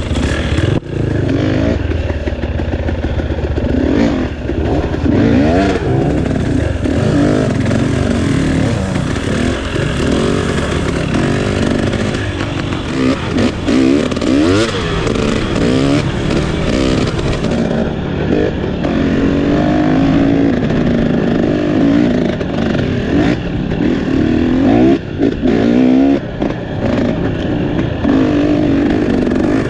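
Trail motorcycle engine running under way, its pitch rising and falling over and over as the throttle opens and closes.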